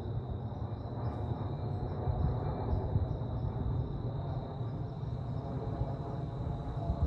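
Steady, distant rumble of a jet airliner's engines passing high overhead, with a thin steady high tone above it.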